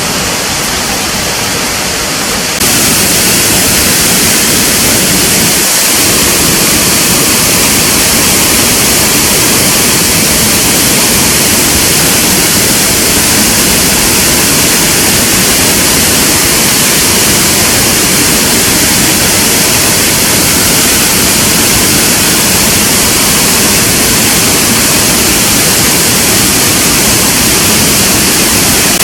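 Waterfall: a loud, steady rush of falling water, stepping up in loudness about two and a half seconds in and then holding even.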